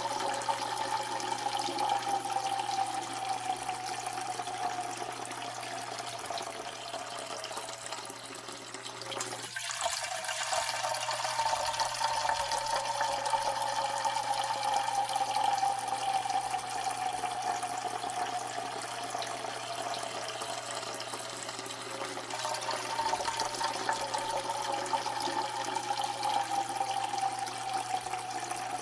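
A steady stream of liquid splashing into water, with a pitch that slowly sinks. It breaks off briefly about a third of the way in, then starts again.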